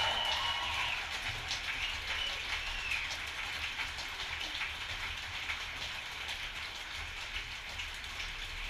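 The last notes of the pit band's play-out die away in the first second, then a steady, faint patter of audience applause.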